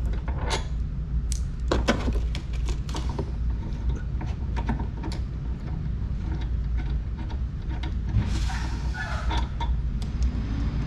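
Small scattered clicks and rattles of hardware being worked loose by hand from a riding mower's seat-mounting bracket, over a steady low rumble.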